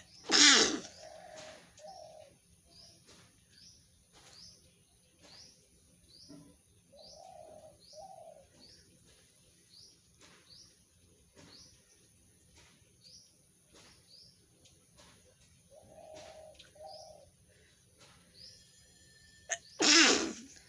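Two loud human sneezes, one just after the start and one near the end. Between them, a bird chirps faintly and repeatedly, with a few softer low calls.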